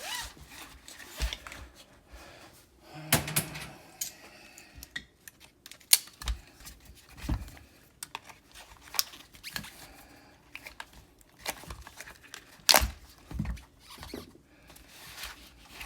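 Irregular plastic clicks, taps and brief squeaks as a seat belt retractor is handled and pulled apart by hand, with a few sharper knocks standing out.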